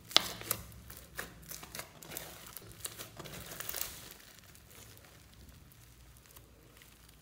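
Floam slime mixed with clay being squeezed and kneaded by hand, its foam beads crackling in quick clicks and pops. The crackling is busiest for about four seconds, then dies down to faint sounds.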